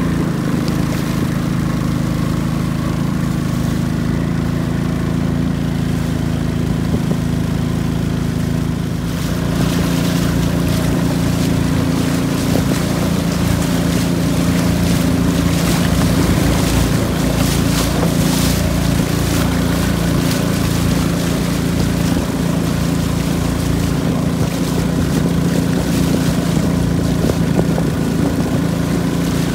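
Long-tail boat's engine running steadily at speed, a constant drone whose note shifts slightly about nine seconds in, with the rush of river water along the hull.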